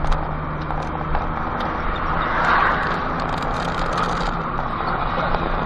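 Car engine and road noise while driving: a steady low hum under a rushing haze that swells about two and a half seconds in.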